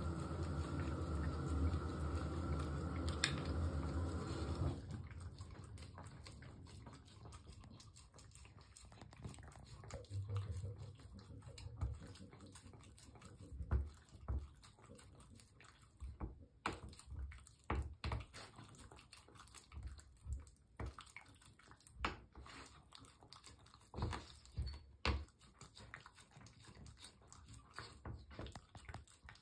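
Dog licking a rubber lick mat: irregular wet licking and smacking clicks, several a second at times. For about the first five seconds a loud steady drone runs under it, then cuts off.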